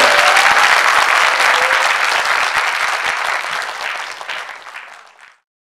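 Audience applauding, the clapping slowly dying away and then cutting off suddenly near the end.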